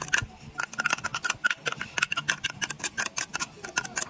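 Metal spoon scraping and clicking against the glass bowl of a mini garlic chopper, about five quick clinks a second, as the minced garlic and chilli is scraped out into a dish.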